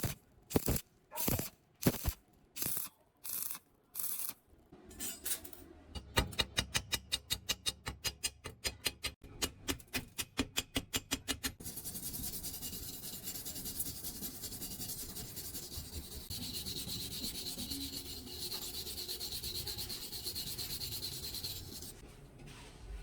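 Repeated scraping strokes on metal, about two a second at first and then quicker at about four a second, giving way about halfway through to a steady hiss that lasts about ten seconds.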